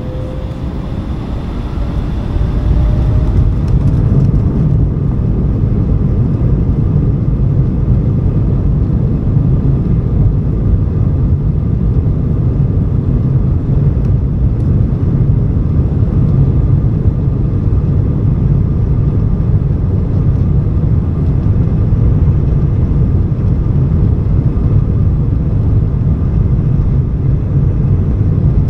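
Embraer E175's twin GE CF34 turbofans heard from inside the cabin, spooling up to takeoff thrust with a faint rising whine. The sound builds over the first two or three seconds, then holds as a steady, loud roar and rumble through the takeoff roll.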